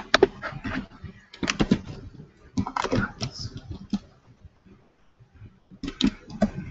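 Computer mouse and keyboard clicks in quick clusters, with a lull of about a second and a half past the middle.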